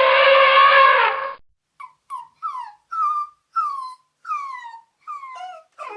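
A loud, held trumpet-like note cuts off about a second and a half in. Then a dog whimpers in a string of short, high, falling cries, about two a second.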